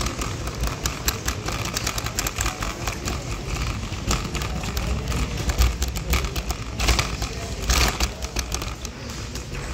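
Red plastic shopping trolley rolling over a tiled floor, its wheels and basket rattling continuously, with two louder clatters about seven and eight seconds in.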